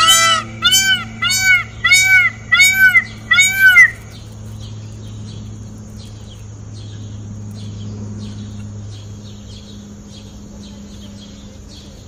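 Indian peafowl (peacock) calling: a run of about six loud calls, each rising and falling in pitch, roughly every half second, stopping about four seconds in. After that only a faint low hum with soft, regular rustling remains.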